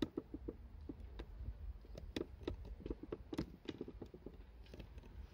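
An irregular series of light taps and knocks, about four a second, a few of them sharper clicks.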